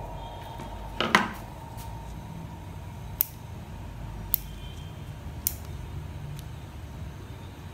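Bonsai scissors snipping leaves off a small ficus bonsai: three short sharp snips about a second apart, after a louder knock about a second in.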